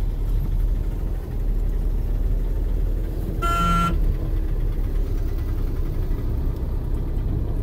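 Low, steady engine and road rumble of traffic, heard from inside a moving vehicle. A vehicle horn honks once, briefly, about three and a half seconds in.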